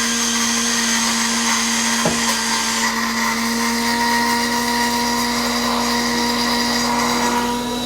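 Cino XS Presso coffee vending machine running a dispensing cycle: a steady electric motor whine from the drink mechanism, holding one pitch, then dropping in pitch as it winds down at the very end.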